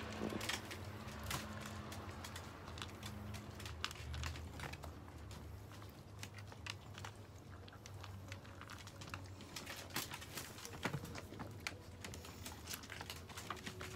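Chihuahuas eating dry kibble, an irregular run of small crunches and clicks, over a low steady hum.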